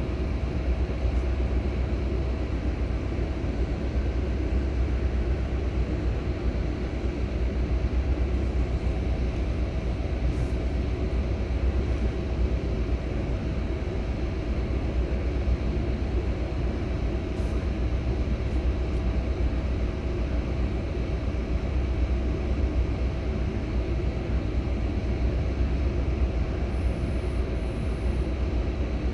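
Scania K360 coach's diesel engine running steadily, a deep even hum with a faint steady whine over it and no change in revs.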